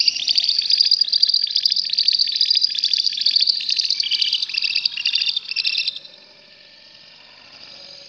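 Blue-mutation lovebird singing a long, rapid, shrill chattering trill, the continuous 'kekekan' chatter, which stops abruptly about three-quarters of the way through.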